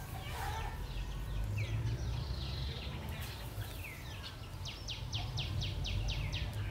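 Birds calling: a short down-slurred whistle repeated every second or so, and a little past the middle a quick run of about ten sharp notes, some five a second. A steady low rumble lies underneath.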